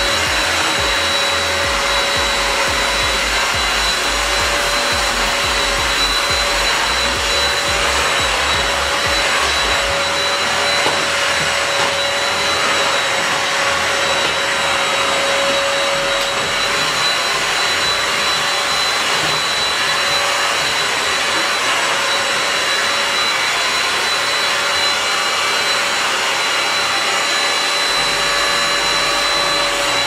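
Mondial Cyclo 2-in-1 upright stick vacuum cleaner running steadily with a constant high whine as its floor head is pushed over a flat-woven rug, sucking up scattered cookie crumbs.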